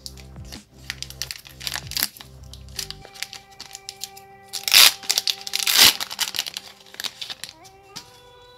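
Pokémon card booster pack wrapper crinkling in the hands, with two loud rips about five and six seconds in as the pack is torn open, over background music.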